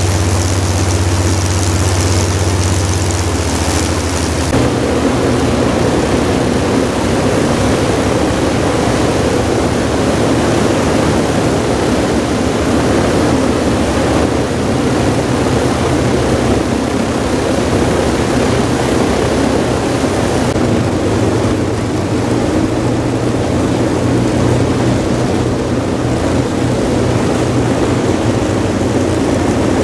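Avro Lancaster Mk X's four Packard Merlin V-12 engines running together on a ground run, a loud steady drone with no break. The tone shifts about four seconds in.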